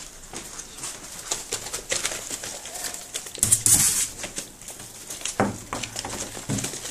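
English setter puppies scuffling on newspaper and cardboard: paws scratching and paper rustling, loudest about three and a half seconds in, with a few short, low puppy whimpers.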